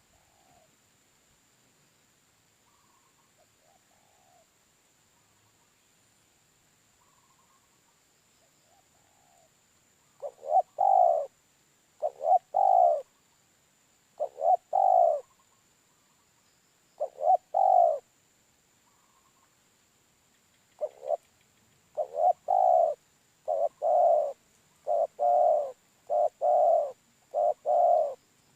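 Dove cooing: faint short calls at first, then from about a third of the way in loud coos in groups of two or three, coming about once a second near the end.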